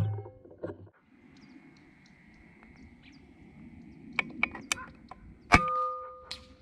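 Two PCP air rifle shots: a sharp crack right at the start and another about five and a half seconds in, each followed by a short ringing tail. A run of light clicks comes just before the second shot.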